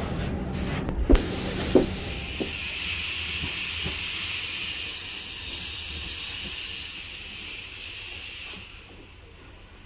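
Steady hiss of steam from the train's steam locomotives as it pulls away from the station, fading near the end. Two sharp clanks about one and just under two seconds in.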